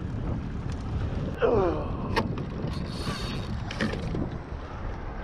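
Wind on the microphone and water around a small boat, a steady low rumble and wash, with a brief voice sound about a second and a half in and a few short knocks and rattles as gear is handled.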